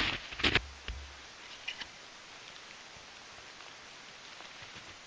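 Boots crunching in packed snow close by: two loud steps in the first half second, then a few faint clicks.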